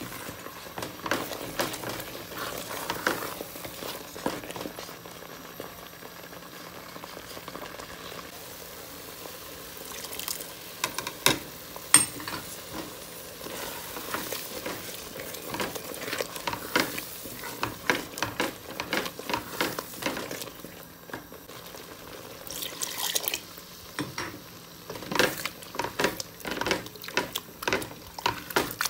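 Wooden spatula stirring thick kidney bean curry in a pot, scraping and knocking against the pot in bouts, over a steady sizzle of the simmering gravy. There is a sharp knock about twelve seconds in.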